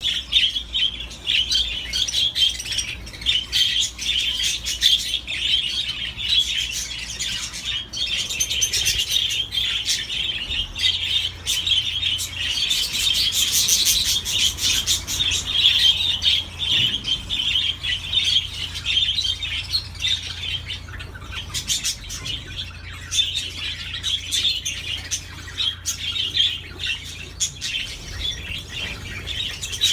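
Budgerigars and lovebirds chattering together, a dense, unbroken mix of overlapping warbles and sharp chirps.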